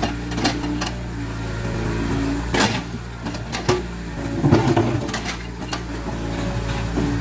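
Caterpillar 307C excavator's diesel engine running steadily, with sharp knocks and clanks of the bucket working stone. There is a short rush of scraping about two and a half seconds in, and a longer, louder one just past four seconds.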